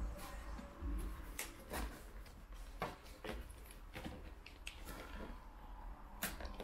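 Screwdriver working open a cardboard box: irregular scrapes and short clicks, a few sharper ones about a second and a half, three seconds and six seconds in.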